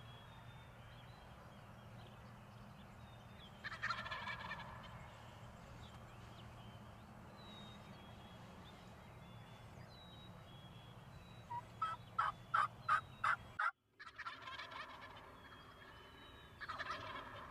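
Wild turkey toms gobbling several times: one gobble about four seconds in, a quick run of about six loud sharp notes around twelve seconds, then more gobbling near the end. Faint songbird chirps run underneath.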